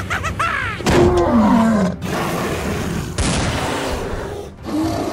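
Cartoon dinosaur roar with a sliding, falling pitch about a second in, followed by a couple of seconds of loud, noisy sound effects.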